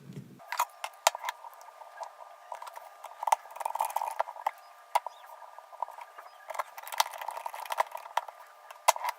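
Irregular light clicks and taps of a screwdriver and small metal parts as the protective plate and its tiny screws are fitted back inside an opened iPhone 6.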